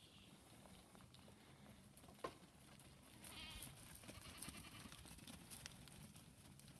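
A sheep bleating once, faint and quavering, about three seconds in, with a single light tick a little before it.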